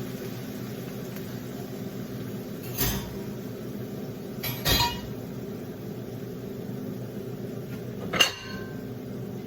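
Cookware knocking and clinking three times: about three seconds in, just before five seconds in, and just after eight seconds, the last with a short metallic ring. A steady low hum runs underneath.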